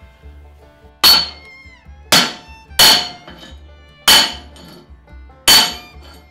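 Hammer striking a metal wheel spacer five times at uneven intervals, each blow sharp and followed by a brief metallic ring.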